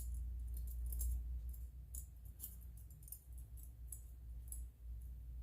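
Faint, irregular metallic clicks and ticks from a Lishi M1 pick working the pins of a Master padlock under light tension, the padlock not yet open. A low handling rumble runs underneath.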